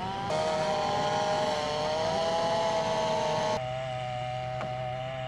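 Two-stroke chainsaw engine running steadily at high revs, with an abrupt change in its tone about three and a half seconds in.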